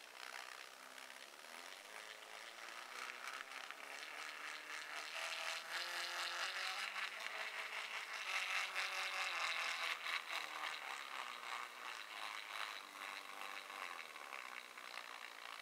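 Small stepper motor driving a KATO Chibiloko N-scale model steam locomotive slowly along the track: a whine that shifts pitch in steps, over a busy rattle and ticking of the gears and wheels. It grows louder toward the middle.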